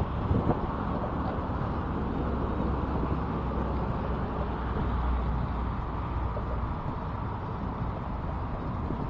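Steady wind rumble on the microphone over choppy water, with a few brief handling knocks on the camera right at the start.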